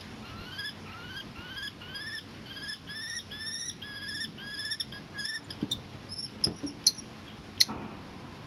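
Common kestrel calling a quick series of short, rising whining notes, about two or three a second, typical of a pair swapping incubation duty at the nest. The calling stops after about five seconds and gives way to a few sharp knocks on the plastic flower box as a kestrel lands, the last of them the loudest.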